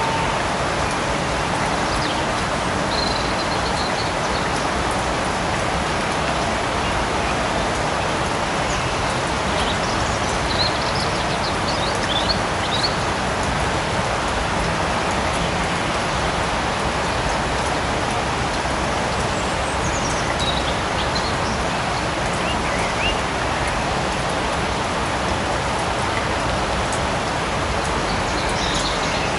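Steady light rain falling in a forest, an even hiss of drops with no change in level. A few faint, short high chirps come and go over it.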